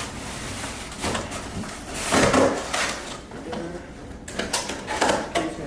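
Cardboard box and packaging of a new vacuum cleaner being handled during unboxing: a few scraping, rustling bursts, the loudest about two seconds in.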